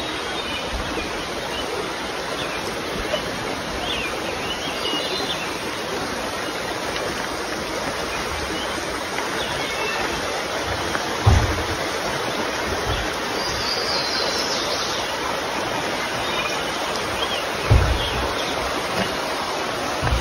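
Steady rushing of a creek's flowing water, with a few short bird chirps above it and two low thumps in the second half.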